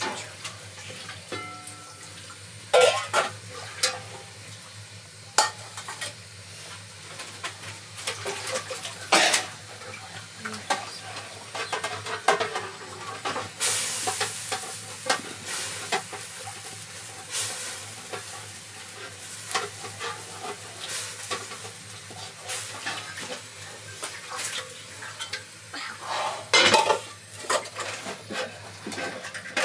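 Cooking over an open wood fire: a wooden spoon stirring and scraping in a metal pot of sizzling food, with scattered knocks and clanks of metal pots, lid and bowls, the loudest a few seconds in and near the end.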